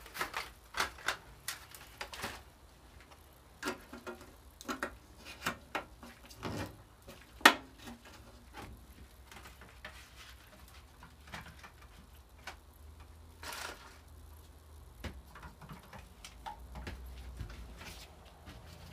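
Scissors snipping as a mirror heating pad is trimmed to size: a run of short, sharp clicks, closely spaced in the first half with one much louder snap about seven and a half seconds in, then only occasional faint clicks.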